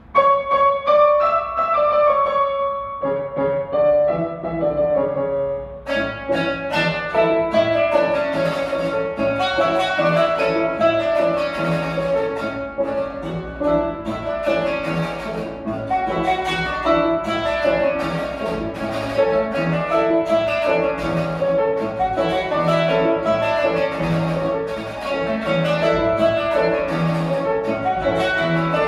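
Qanun and grand piano playing a duet, the qanun's quick plucked notes over piano chords. The music grows busier and brighter about six seconds in.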